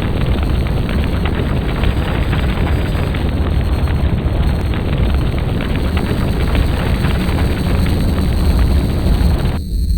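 Loud, continuous rumbling roar, heavy in the low end, that starts abruptly and cuts off suddenly about nine and a half seconds in.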